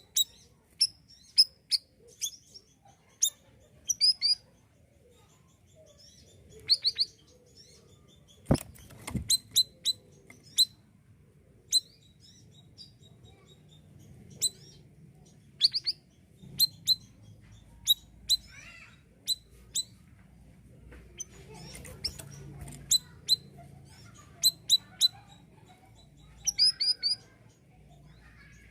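Siri-siri bird calling: sharp, high chirps given singly and in quick runs of two to five, with pauses of a second or more between them. A single knock sounds about eight seconds in.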